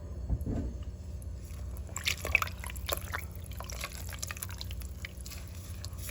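Water being poured into a cooking pot over chicken pieces, splashing and dripping, with a few sharper splashes about two seconds in.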